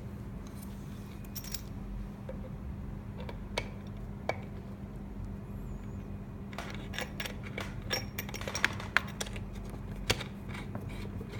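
Small clicks and metallic taps of an antenna cable connector being handled and screwed onto a controller box. The taps are scattered at first and come thicker in the second half, over a steady low hum.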